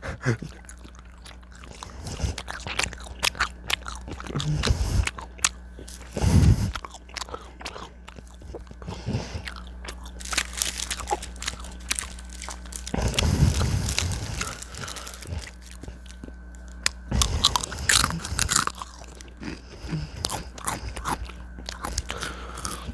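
A person chewing and biting a tropical tie-dye fruit roll-up close to the microphone: irregular wet clicks and crunchy mouth noises, with louder bites about six, thirteen and seventeen seconds in.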